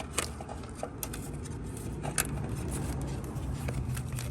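Scattered light clicks and taps of metal parts and tools being handled while a battery cable is fitted, over a steady low hum that rises in pitch about two seconds in.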